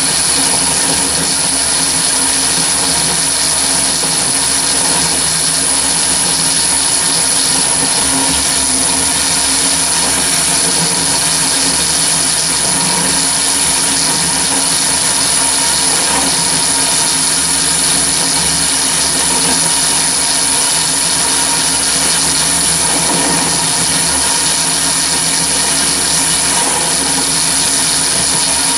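Chinese mini lathe driven by a three-phase motor on a VFD, running steadily while a 41/64-inch twist drill bores straight into hard steel with no pilot hole, with a steady high-pitched whine over the running noise. The pitch and level hold even throughout: the spindle keeps its speed under the drilling load.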